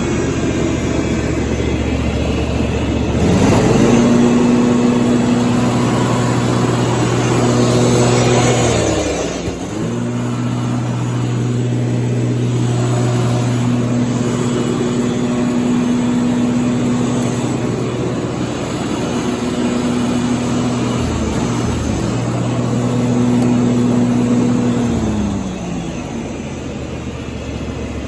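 John Deere D160 lawn tractor engine running: it rises from idle to a higher steady speed about three seconds in, dips and recovers twice, and settles back to idle near the end. It runs evenly, brought back from two years of sitting with a cleaned carburetor.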